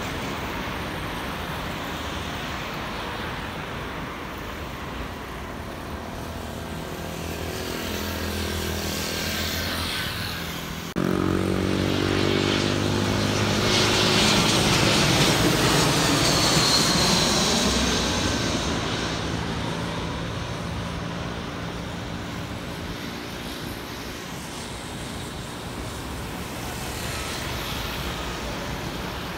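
Jet airliners on landing approach: a steady jet engine rumble, then, after a sudden jump in level about eleven seconds in, an Airbus A320-family airliner passing low overhead with its engine whine falling in pitch as it goes over, fading away afterwards.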